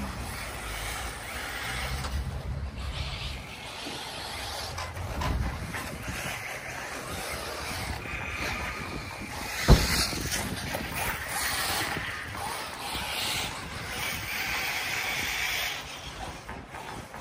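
Electric radio-controlled cars running on a dirt track, a steady hiss of motors and tyres with wind on the microphone. A single sharp knock about ten seconds in is the loudest sound.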